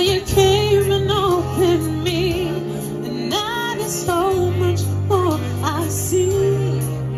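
A woman singing a slow, soulful song into a microphone with wavering, vibrato-laden held notes, over instrumental accompaniment with long sustained bass notes.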